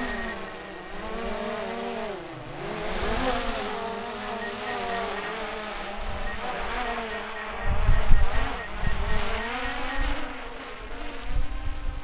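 DJI Mavic Air 2 drone's propellers whining as it climbs, the pitch wavering up and down as the motors fight a gusty wind. Gusts of wind rumble on the microphone about eight seconds in.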